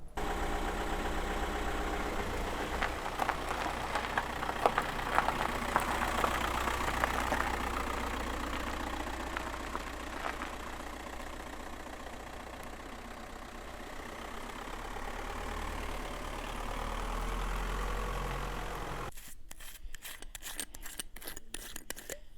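An engine running steadily with a low hum, its bass growing stronger shortly before it cuts off. It is followed by a short run of irregular sharp clicks near the end.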